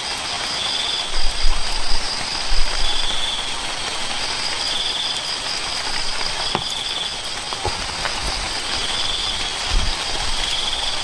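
Steady rain hiss with a high note repeating about once a second over a fast, steady high trill. A few low thumps about one to three seconds in.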